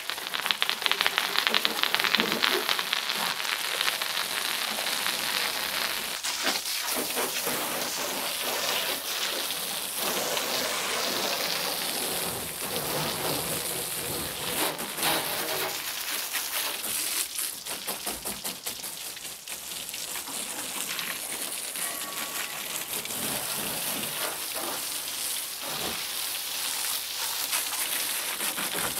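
Jet of water from a hose splashing onto a tractor's cab glass, green body panels and tyres, a continuous hissing splash that rises and falls in loudness. The detergent is being rinsed off.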